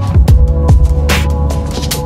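Electronic music with a heavy beat: deep bass kicks that drop in pitch, sharp snare hits and sustained synth tones.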